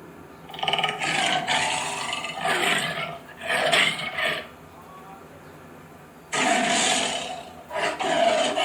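A big cat roaring and growling in rough, loud bursts: several in the first half, a pause of about two seconds, then two more near the end.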